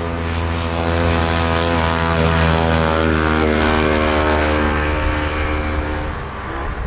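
Vintage racing snowmobile's two-stroke engine running hard as the sled races past close by, its pitch dropping as it goes by about three seconds in, then fading as it moves away.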